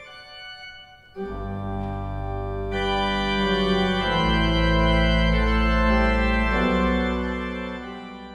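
Church organ playing held chords over a deep pedal bass. It enters about a second in, grows fuller and louder, then fades near the end.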